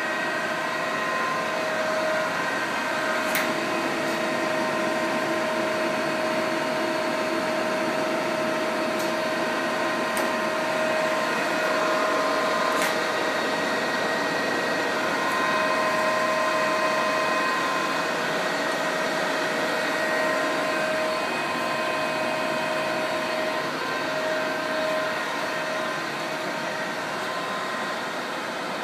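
Union BFT 90/3 horizontal boring mill running: a steady mechanical whine made of several tones that come and go as its drives work, with a few sharp clicks in the first half.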